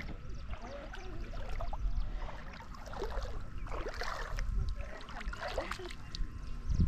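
River water sloshing and splashing, with small irregular splashes and trickles.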